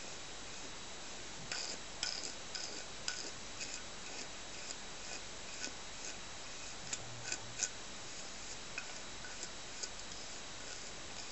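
A grooming brush drawn through a Shih Tzu's long coat: irregular light clicks and rubbing strokes over a steady hiss, busiest about two seconds in and again past the middle.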